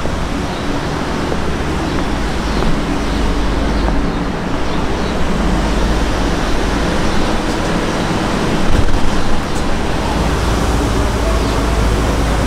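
McLaren 720S's twin-turbo V8 idling steadily, with a brief louder swell about nine seconds in.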